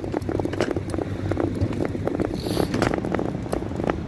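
Small wheels of a mobility aid rolling over paving slabs, rattling and clicking rapidly and unevenly over a low rumble.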